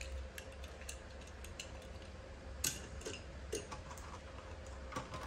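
Scattered light clicks and taps of small die-cast toy cars and their plastic packaging being handled and set down on a table, the sharpest click a little under 3 seconds in, over a faint steady hum.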